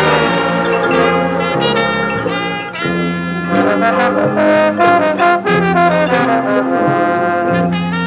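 High school marching band playing its field show: the brass play a busy passage over drums, turning to short, punched notes with sharp drum accents from about three seconds in.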